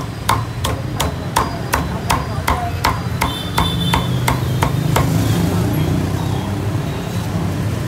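Meat cleaver chopping roast pork on a thick round wooden chopping block, steady chops about three a second, which stop about five seconds in.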